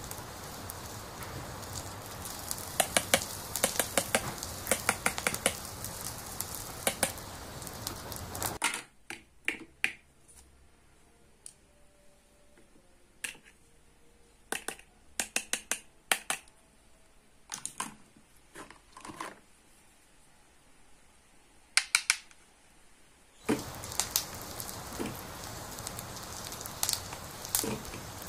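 Toy stove's steaming pot giving a steady crackling hiss, which cuts off suddenly about eight and a half seconds in. Then come scattered light clicks and taps of plastic toy dishes and toy food being handled, until the hiss starts again near the end.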